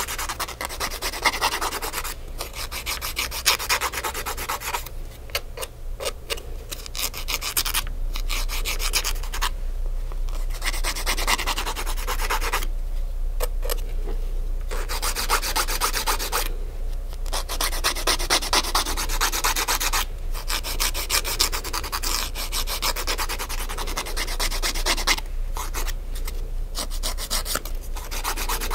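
Nail file filing fingernails in rapid back-and-forth strokes, in runs of a few seconds with short pauses between.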